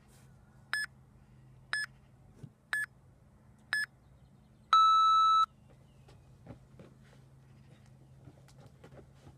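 Interval timer countdown: four short high beeps a second apart, then one longer, lower-pitched beep about five seconds in that signals the start of the work interval. Faint scattered taps follow.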